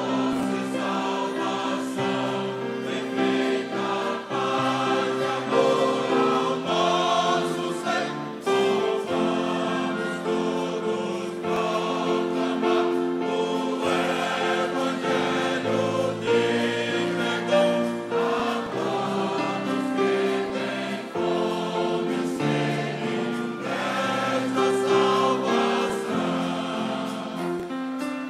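Mixed church choir singing a gospel song in several parts, holding chords that change every second or so.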